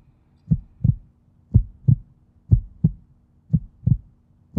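Heartbeat sound effect: low double thumps (lub-dub), about one beat a second, steady and even.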